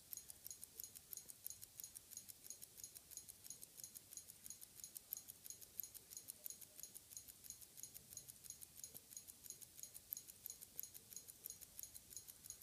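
Benrus 3061 hand-wound mechanical wristwatch ticking, faint, rapid and even, several ticks a second, as the movement runs.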